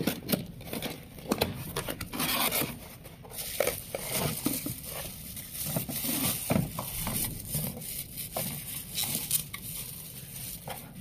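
A cardboard box being opened and handled, with a plastic bag crinkling and rustling as an excavator-bucket mug is unwrapped and lifted out. The sound is an irregular run of rustles, crackles and small clicks and knocks.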